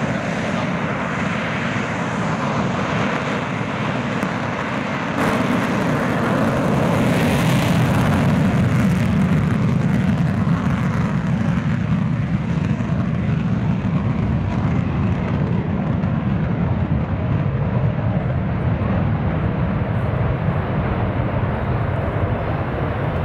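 JF-17 Thunder fighter's single Klimov RD-93 afterburning turbofan at full power for an afterburner takeoff. The jet noise steps up and turns hissier about five seconds in, then the high hiss fades as the fighter races away down the runway and lifts off.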